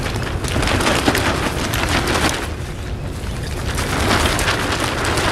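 Nylon dome tent held up by its poles and shaken out, the fabric flapping and rustling in repeated swells to shake dog hair out of it.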